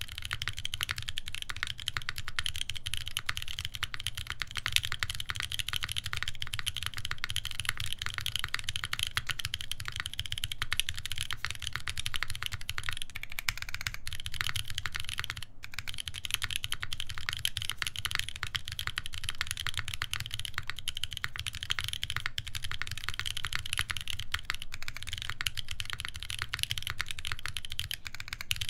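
Continuous fast typing on an UNIKORN R2.1 mechanical keyboard with lubed Boba U4T tactile switches, a full FR-4 plate and GMK keycaps: a dense, unbroken stream of keystrokes that begins suddenly.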